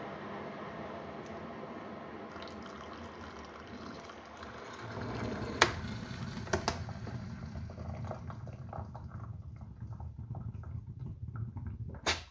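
Breville one-cup hot water dispenser heating with a steady hiss, then from about five seconds in a stream of hot water pours from its spout into a ceramic mug. A few sharp clicks sound during the pour and near the end.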